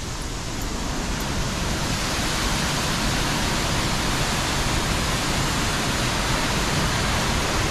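Rogie Falls waterfall: the steady rush of falling water, growing louder over the first couple of seconds and then holding even.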